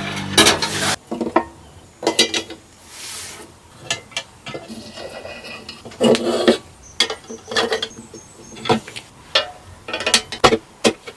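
Irregular clinks, taps and knocks of small hard parts being handled and set down, in quick scattered strikes with short gaps, and a brief hiss about three seconds in.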